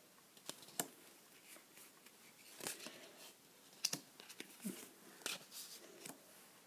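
Pokémon trading cards being handled and laid down on a table: faint rustles and brushes of card stock, with a few sharp light taps scattered through.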